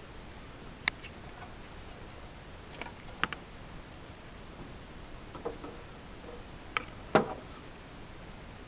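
Scattered light clicks and knocks, about six in all with the loudest near the end: metal bolts being handled and fitted into the holes of a poly-lumber bench's arm.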